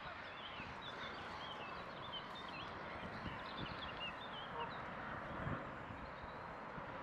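Small birds chirping: short, high, quick calls in the first four seconds or so that thin out later, over a steady outdoor background hiss at a reedy lake.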